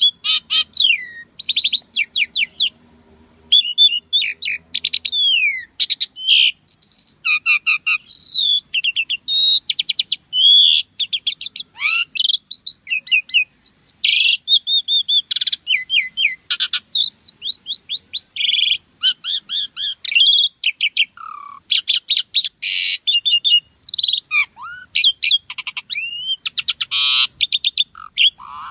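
Asian pied starling singing nonstop: a rapid, varied jumble of whistles, chirps, rising and falling glides and harsh rattling notes.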